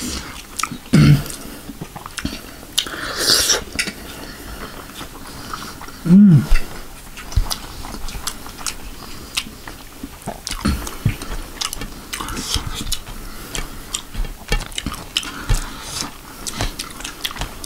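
Close-miked wet chewing and lip smacking of a person eating chicken momo dumplings with chutney. Two short hummed "mm" sounds come about a second in and about six seconds in.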